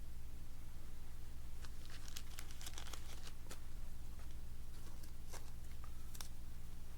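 Plastic and paper card packaging crinkling as it is handled, with scattered light crackles between about a second and a half and six seconds in, over a steady low hum.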